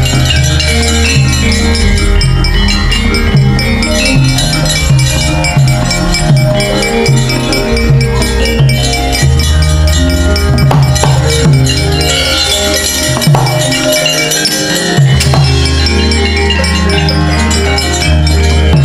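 Javanese gamelan ensemble playing loudly: bronze metallophones and gongs over a drum rhythm, with a few sharp strikes roughly in the middle.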